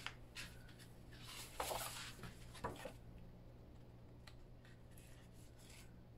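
Paper being handled: a brief rustle about a second and a half in, with a few light taps and clicks before and after it.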